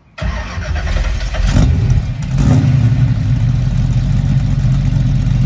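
Car engine starting, revved twice in the first couple of seconds, then running steadily.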